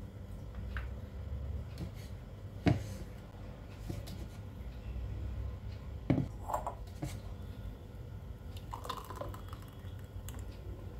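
A plastic blender jar and its lid handled on a countertop, with two sharp knocks and a few small clatters. Near the end, blended watermelon juice pours from the jar into a glass.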